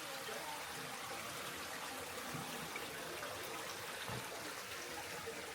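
Spring water trickling and running in a steady stream, with a few faint low thumps.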